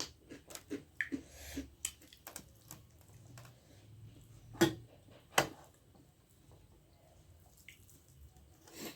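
Eating sounds: wet mouth clicks, smacks and chewing of dhido and nettle curry, with scattered soft ticks and two sharper clicks about halfway through.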